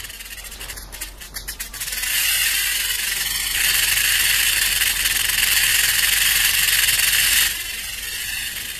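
Rattlesnake shaking its rattle: a few loose clicks that run together into a continuous dry, high buzz. The buzz is loudest in the middle, then eases to a softer buzz near the end. This is the snake's warning to large animals not to step on it.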